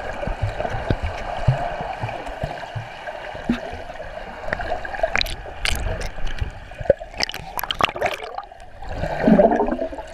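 Muffled underwater water noise heard through a submerged camera, gurgling with scattered sharp bubble clicks, and a louder muffled burst about nine seconds in.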